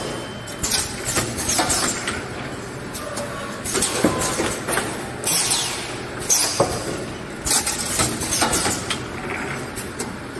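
Automatic spider-strainer welding machine cycling: its pneumatic cylinders give repeated bursts of hissing air with sharp clunks of the tooling, about every one to two seconds.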